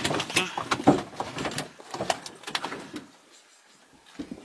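Handling noise of clothing and fishing tackle: a quick run of rustles, small clicks and light knocks as fishing line and a lure are worked by hand in a metal boat. It dies away about three seconds in.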